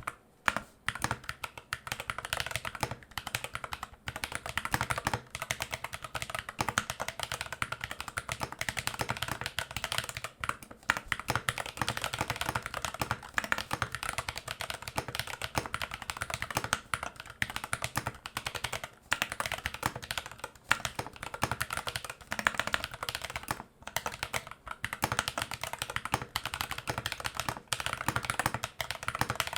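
Fast, continuous typing on a Glorious GMMK Pro mechanical keyboard fitted with Glorious Panda tactile switches and Geekark PBT keycaps: a dense run of keystrokes with a few brief pauses.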